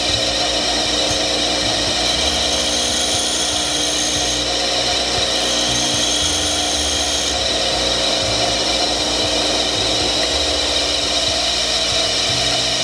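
Electric bench grinder running steadily with its motor hum. A steel twist drill bit is held against the spinning abrasive wheel to sharpen its point, which adds a high grinding hiss in two spells of a few seconds each near the middle.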